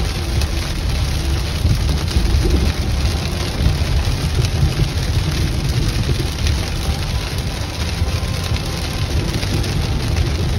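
Heavy rain beating on a moving car, heard from inside the cabin, over a steady low rumble of road and tyre noise at highway speed.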